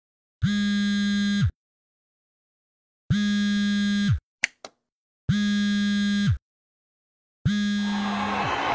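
Smartphone vibrating against a hard surface for an incoming call: four buzzes of about a second each, spaced about a second apart, each dropping in pitch as it stops, with two short clicks after the second buzz. Crowd noise comes in near the end.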